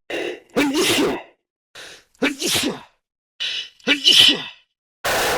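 A quick series of sneezes, one about every second, each voiced differently. Near the end comes a longer, even burst of hissing noise lasting about a second.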